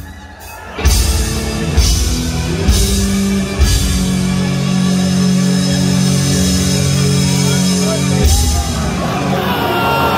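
Live rock drum solo over the arena PA: heavy drum-kit hits about once a second, then a held low chord rings under the drums for about four seconds before another big hit.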